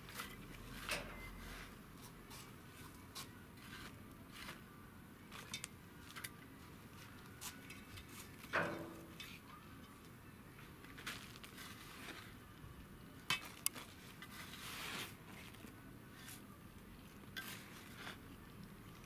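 Gloved hands working soil in a steel planter made from a gas bottle: scattered light clicks, taps and scrapes against the metal. One louder knock about eight and a half seconds in leaves a short low ring, and two sharp clicks follow a few seconds later.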